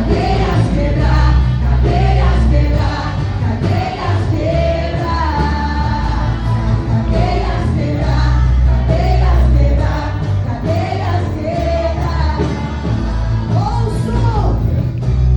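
Live gospel worship music: voices singing a melody together over a band with a heavy, sustained bass.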